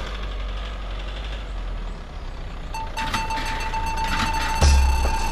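A car running with a low, steady rumble as it drives up and pulls in. About three seconds in, electronic music with a heavy bass beat starts over it.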